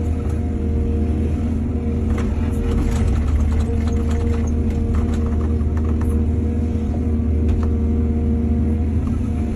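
Heavy diesel engine of a hydraulic excavator running steadily under load, with scattered knocks and clatter through the middle, typical of the bucket digging and dumping soil.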